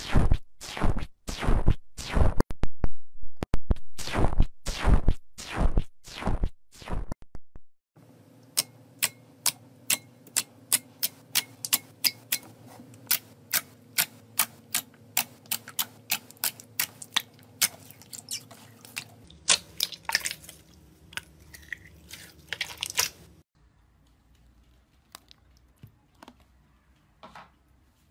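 Slime handling sounds. First a foamy, bubble-filled slime is stirred and poked with a metal spoon, giving loud crackling pops about twice a second. After about 8 s, hands press a glittery slime, giving sharp clicks several times a second over a steady hum. Then, for the last few seconds, a smooth slime is patted quietly.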